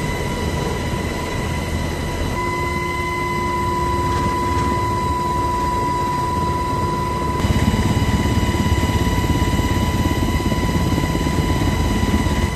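HH-60 Black Hawk helicopter heard from inside the cabin in flight: a steady high whine over a dense rotor and engine rumble. About seven seconds in it gets louder, with a fast, even beat from the rotor.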